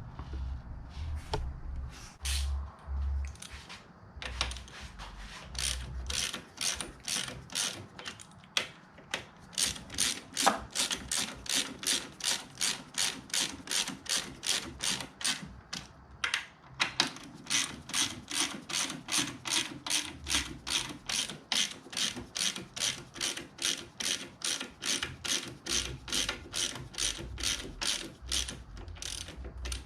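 Hand ratchet wrench being cranked back and forth, its pawl clicking in a steady rhythm of about two to three clicks a second, starting sparsely and then running on without a break.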